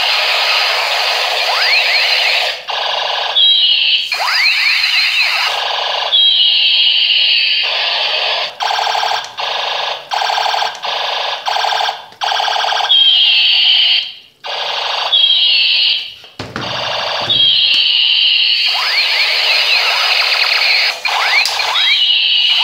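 Electronic sound effects from battery-powered toy guns: repeated bursts of siren-like sweeping tones, with a run of about six short, evenly spaced blasts halfway through.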